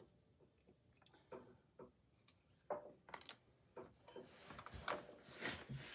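Faint scattered taps and a soft paper rustle as painted paper swatches are handled and laid down on a table.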